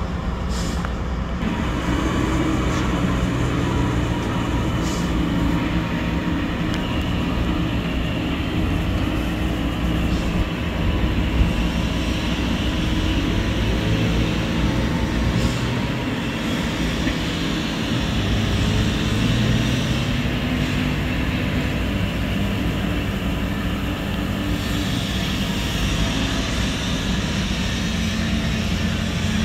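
Fiori D90 SW water truck's diesel engine running as the truck drives about and its water cannon sprays, the engine pitch rising and falling slightly. A steady hiss lies over the engine note.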